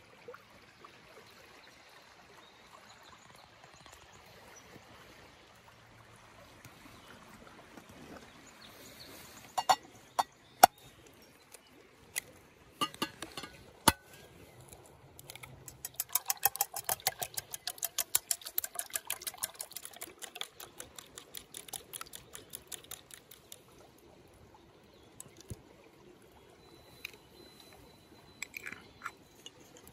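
Soft steady rush of a river, then a few sharp taps as an egg is cracked against the rim of a plate. After that comes a quick run of clinks from a utensil beating the egg in the plate, several strokes a second for about eight seconds, and a few light taps near the end.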